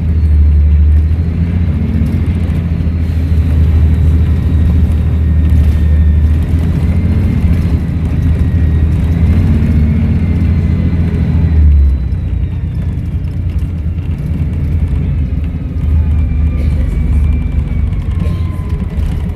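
Volvo B7RLE bus's turbocharged six-cylinder diesel engine running with a loud low rumble and a thin turbo whistle that drifts slowly in pitch. About twelve seconds in, the engine note drops as it comes off power, and a lower whistle falls away near the end.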